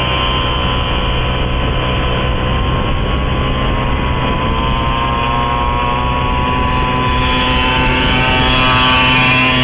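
Motorcycle engine running, its note rising gradually and growing louder toward the end.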